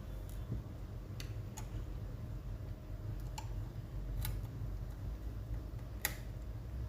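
Scattered small clicks and light taps, about six of them, the sharpest near the end, over a low steady hum: the hard disk and its fittings being handled as it is taken out of an ASUS VivoBook A442U laptop.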